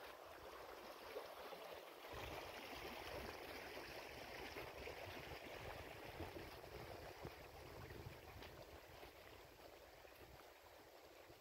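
Faint, steady rush of running water, as from a small stream, growing louder about two seconds in.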